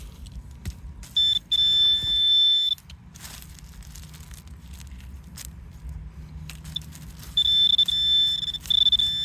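Metal detector target tone: a steady high-pitched electronic tone sounds for about a second and a half starting a second in, then again from about seven seconds in, signalling metal in the ground.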